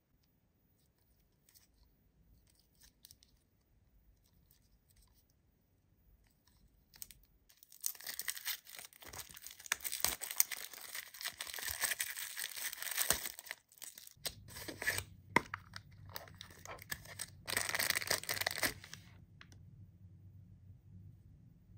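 Clear plastic shrink-wrap being peeled and torn off a small plastic toy case, crackling and crinkling for about ten seconds from roughly a third of the way in. Before that there are only a few faint handling taps, and near the end it is quiet again.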